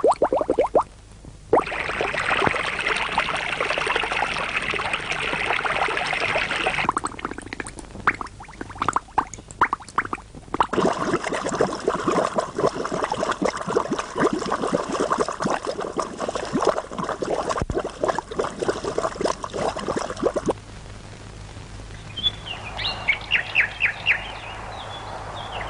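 Spring water pouring and splashing in gushes, in two long stretches separated by a few seconds of scattered splashes. It eases to a quieter, steady rush near the end.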